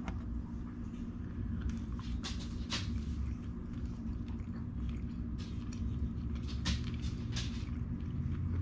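A person chewing a bite of cooked redfish, with short wet mouth clicks and smacks over a steady low hum.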